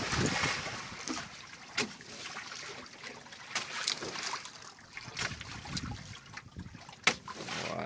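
Water splashing and trickling against a fishing boat's hull, with a few sharp knocks and clicks scattered through it.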